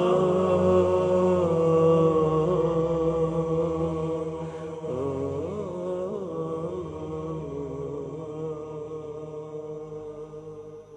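Background vocal chant, held melodic notes with no instruments standing out, fading out gradually over the last several seconds.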